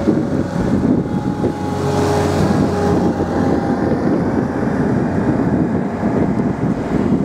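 Wind buffeting the microphone, a loud uneven low rumble. A steady engine hum sounds under it from about a second and a half to three seconds in.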